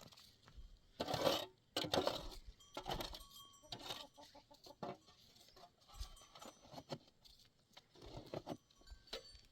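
Chickens clucking: a run of short, uneven calls, loudest about one to two seconds in.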